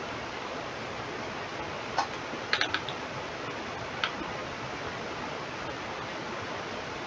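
Steady background hiss, like microphone noise, with a few sharp computer-mouse clicks: one about two seconds in, a quick run of three or four half a second later, and one more about four seconds in.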